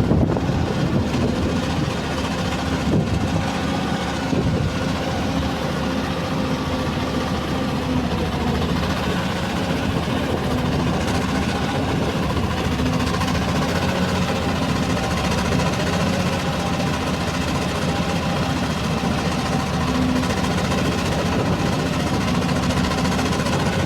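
Hyundai R480LC excavator's diesel engine running steadily at idle, with a slightly uneven, knocking note from a faulty injector misfiring.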